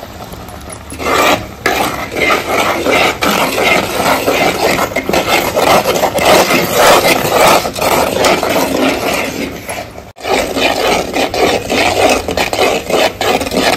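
Metal ladle scraping and rasping against a black cooking pot while thick moong dal halwa is stirred, the halwa thickening toward its finished stage. The scraping runs on continuously, with a brief break about ten seconds in.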